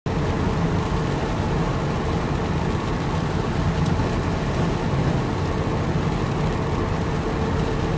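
Steady low rumble of a car's engine and tyres on a wet road, heard from inside the cabin while driving.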